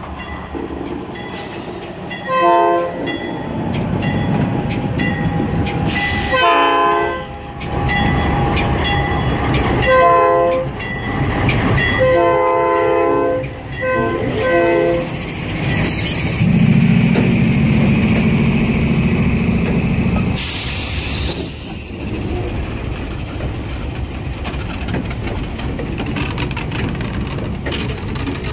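A locomotive air horn sounds a series of about five blasts, a longer one in the middle of the run, over the steady noise of the moving train. A low drone follows for a few seconds.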